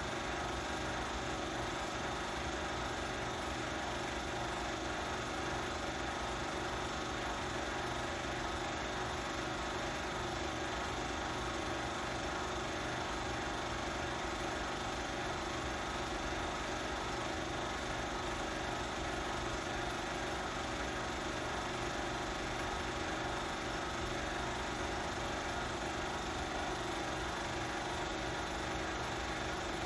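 Film projector running with a steady mechanical whir that does not change.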